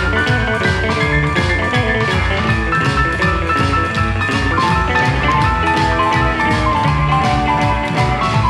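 Instrumental rockabilly band music with a steady drum beat and a melody line of changing notes, no singing.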